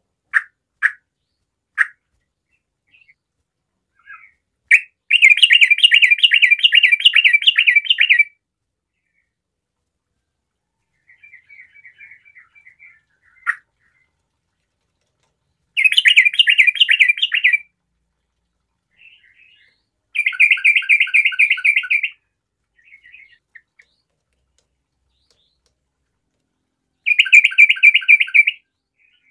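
Yellow-vented bulbul (trucukan) singing hard: a few short separate chirps, then four loud bursts of fast, bubbling chatter, each one to three seconds long, with softer chatter between them.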